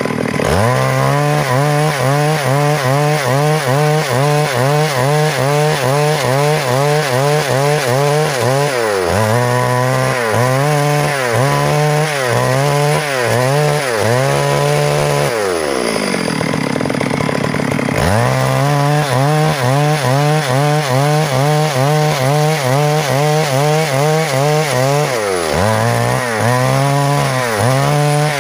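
Stihl MS 382 two-stroke chainsaw cutting through a log under load, its engine pitch wavering in a steady rhythm as the chain works through the wood. About halfway through it slows down for a couple of seconds, then revs back up and carries on cutting.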